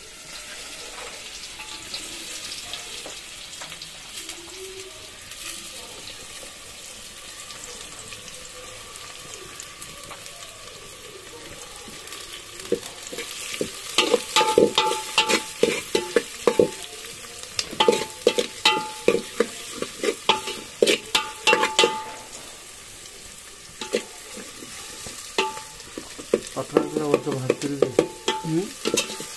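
Onions frying in hot oil in a metal cooking pot over a wood fire, a steady sizzle. From about halfway through, a spoon stirs and scrapes against the pot in quick clusters of clicks that make the pot ring, and these are the loudest sounds.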